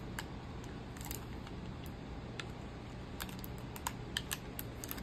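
Light, scattered clicks and taps of small plastic pieces being handled: a toy doll's plastic stand being fiddled with in the hands. The clicks come more often in the second half.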